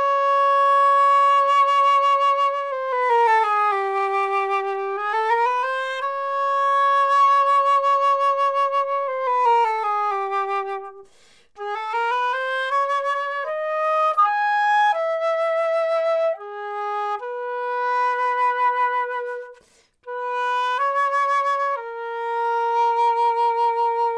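Solo flute playing a slow melody, recorded dry in a studio with no room reverberation. It holds long notes joined by smooth glides, with two short breaks between phrases, and the notes stop with no reverberant tail.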